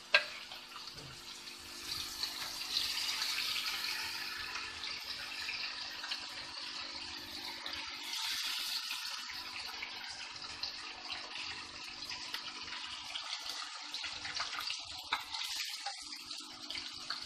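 Chicken pieces frying in hot oil in a pan: a steady sizzling hiss, with a few clicks and scrapes of a metal slotted spoon against the pan as the fried pieces are lifted out.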